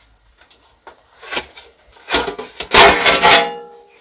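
Knocks and clatter from handling the metal parts of a small-form-factor PC case, building to a loud cluster of clanks about three seconds in, with a brief metallic ring that dies away.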